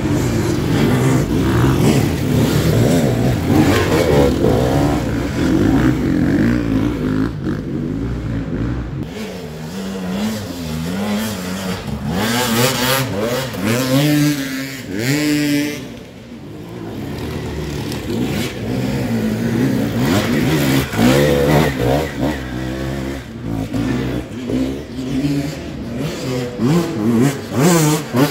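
Enduro dirt bike engines revving hard on a steep, loose hillclimb, the pitch rising and falling again and again as the riders work the throttle for grip.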